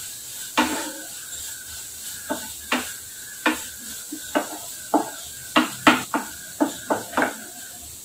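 Wooden spatula stirring a chopped onion-tomato masala in a nonstick kadai, knocking and scraping against the pan about a dozen times, the knocks coming faster in the second half.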